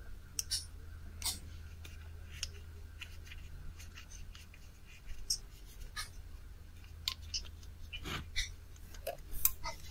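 Small clicks and scrapes of hands and tools working on the IP camera's connector wiring, coming irregularly and getting busier near the end, over a low steady hum.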